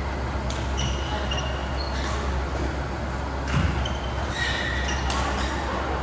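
Badminton rally: rackets striking the shuttlecock with sharp knocks about every second and a half, the loudest a little past the middle, among short squeaks of shoes on the court floor, over a steady low hum.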